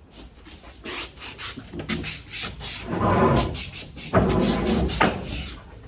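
Cargo being unloaded from a truck: a run of short knocks and clatters, with two longer, louder scraping, rubbing stretches about three and four seconds in.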